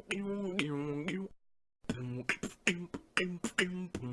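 Beatboxing: sharp mouth-percussion hits alternating with hummed bass notes that step between a few pitches. The sound drops out completely for about half a second partway through, then the pattern resumes.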